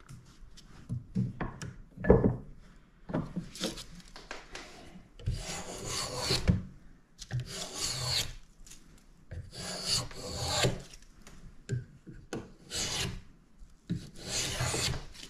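A small hand plane shaving a spruce violin bass bar, in a series of uneven push strokes with brief pauses and light knocks between them.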